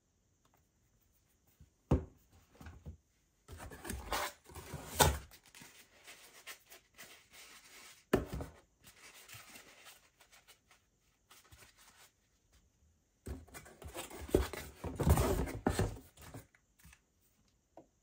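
Hands handling plastic spray bottles and a foam applicator pad on a wooden tabletop: irregular stretches of rubbing and scraping, with a sharp knock about two seconds in and another near the middle as a bottle is set down.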